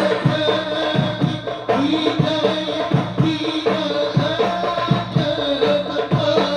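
Sholawat devotional singing by a group, accompanied by hand drums struck in a steady rhythm.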